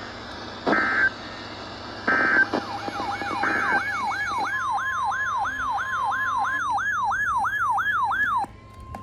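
Emergency alert broadcast audio: three short electronic data bursts about 1.4 s apart, then an electronic yelp siren whooping rapidly up and down over a steady tone, about two and a half cycles a second, that cuts off sharply near the end.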